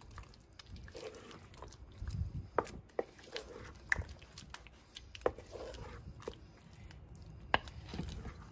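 Wooden spoon stirring thick cheese dip through shredded chicken in a slow cooker crock: wet squelching, with scattered sharp knocks of the spoon against the crock.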